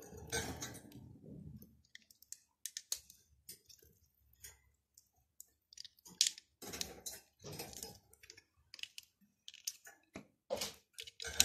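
Small plastic LEGO bricks being handled and pressed together: irregular sharp clicks and clacks, with a few longer stretches of handling noise.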